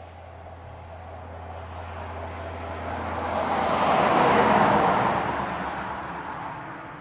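Heavy truck passing on the highway at speed. Engine and tyre noise build up, are loudest about four and a half seconds in, then fade away.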